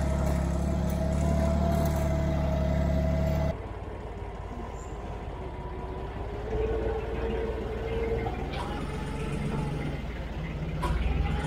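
Yanmar F17D compact tractor's diesel engine running while the tractor is driven. The engine is loud at first and drops suddenly about three and a half seconds in, then runs on more quietly.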